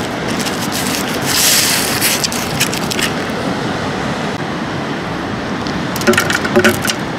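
Steady wind rushing over the microphone, with the rustle and scrape of a paper-wrapped firework shell being handled and lowered into its mortar tube. The handling sounds come about a second in and again near the end.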